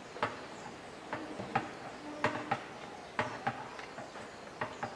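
Hand ratchet wrench with a socket being worked, giving sharp, irregularly spaced clicks about every half second.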